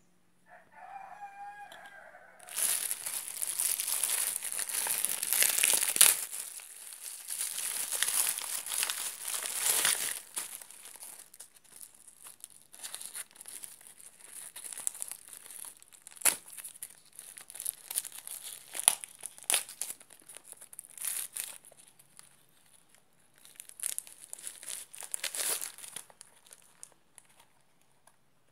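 Plastic packaging crinkling and tearing as a parcel is unwrapped by hand: a long stretch of rustling, then scattered bursts with a few sharp rips. About a second in, a short wavering pitched call sounds just before it.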